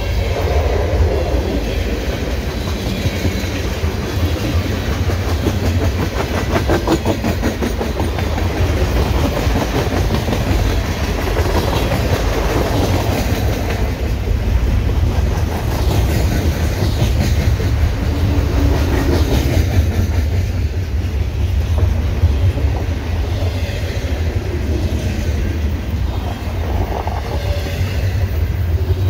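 Freight train cars rolling past: a steady loud rumble, with wheels clacking over rail joints.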